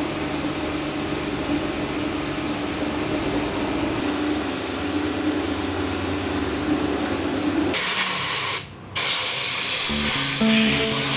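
Background music, then about three-quarters of the way in a compressed-air engine-cleaner spray gun starts hissing loudly as it blasts cleaner onto a mud-caked truck underside to soften the crust. The hiss cuts out once for a moment and resumes.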